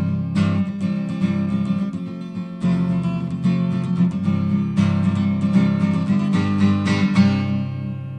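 Acoustic guitar strumming chords as the song's instrumental ending; the last strum comes near the end and rings out, fading away.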